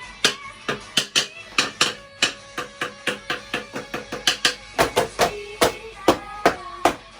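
Rapid hammering, several sharp blows a second at an uneven pace, over background music.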